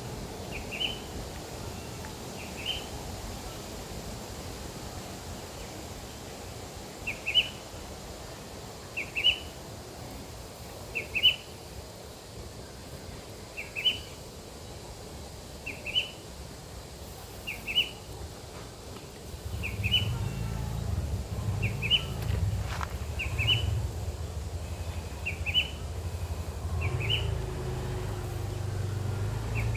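A bird giving a short, high double chirp over and over, about every two seconds. From about two-thirds of the way in, a steady low rumble joins it.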